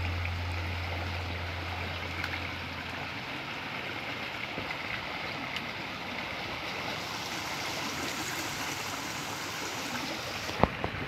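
Fast-flowing river water rushing steadily, an even hiss of current. A couple of sharp knocks near the end.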